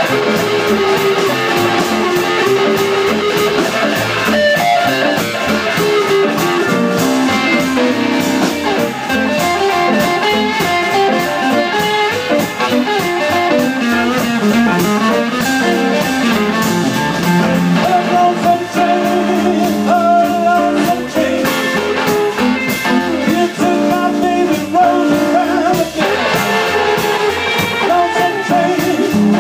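Live blues band playing: two electric guitars over an upright bass and a drum kit.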